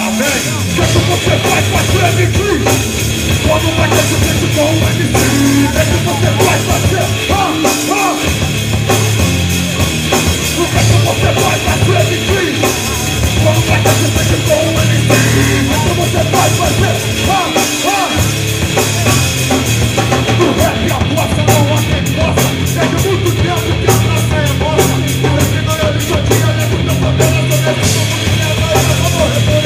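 Rock band playing live through a PA: distorted electric guitars and bass over a drum kit, heavy punk/metal style. In the last third the drums settle into fast, even cymbal strokes.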